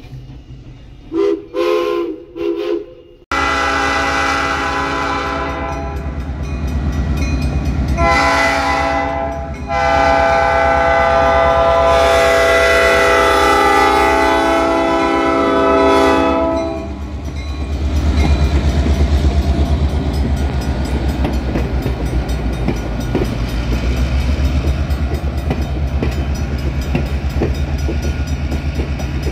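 Three short toots of a steam locomotive whistle, then a diesel locomotive's air horn sounding three loud blasts, the last the longest. After the horn stops, the train rolls past with a low rumble and the clickety-clack of wheels on the rails.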